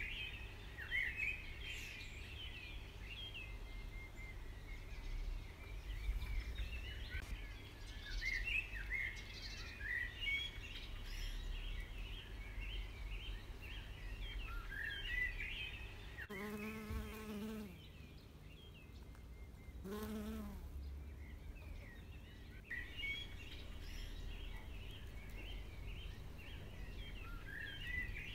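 Small birds chirping and singing in many quick short notes. Midway the birdsong pauses, and a bee buzzes past twice, a droning hum of a second or so each time.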